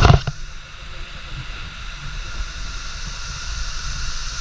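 A loud scuff and knock right at the start as a running shoe slips on the steep trail, then a steady rushing hiss over low rumbling on the microphone.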